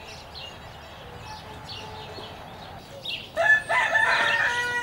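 A rooster crowing once, starting about three seconds in, over faint chirps of small birds.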